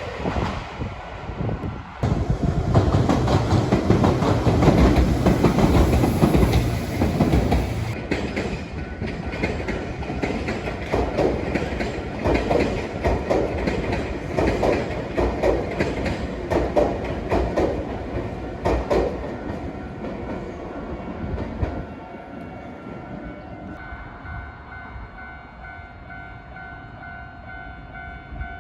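Nankai Main Line electric train running over a level crossing, its wheels clacking over the rail joints in a fast, regular rhythm, loudest in the first few seconds and dying away after about twenty seconds. Near the end a level crossing bell rings on steadily.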